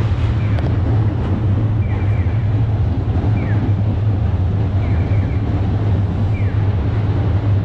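Outdoor city street noise: a steady low rumble with wind buffeting the microphone. A short, high, falling chirp repeats about every second and a half.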